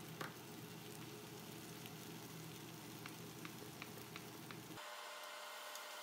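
Beef short ribs and cut vegetables sizzling faintly in a cooking pot, with light crackles. A little before the end the sound changes abruptly to a thinner, steady hiss.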